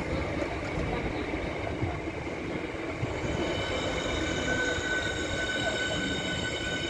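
Southeastern Class 465 Networker electric multiple unit running past along the platform: a steady rumble of wheels on rails. A steady high-pitched whine joins in about three seconds in.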